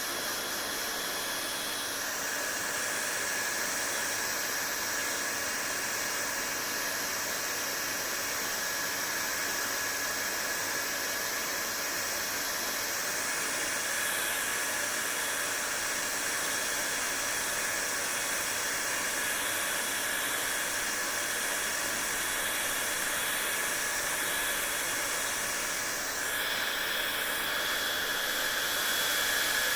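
Hair dryer running steadily: an even rush of blown air with a faint steady whine from the motor. Its tone shifts slightly about two seconds in and again near the end.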